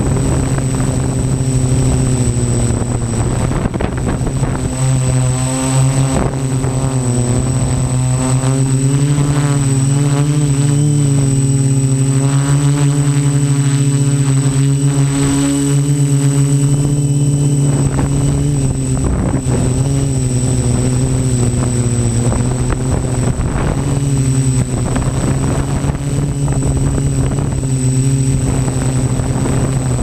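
Quadcopter's electric motors and propellers buzzing in flight, heard from a camera mounted on the craft, the pitch wavering up and down as the throttle changes, most in the middle. A thin high whine holds steady underneath.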